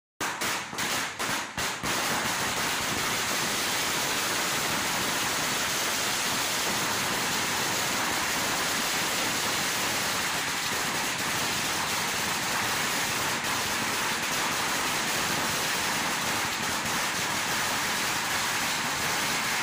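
A 2000-wala string of firecrackers going off: a few separate bangs in the first two seconds, then one continuous dense crackle of small explosions.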